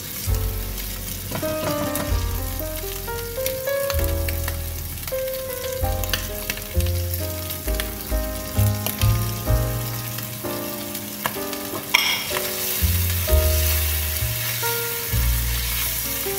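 Red kidney beans and diced bacon sizzling in a nonstick frying pan while a spatula stirs them and cooking cream is worked in. The sizzle turns brighter about twelve seconds in. Background music with a melody and bass line plays alongside.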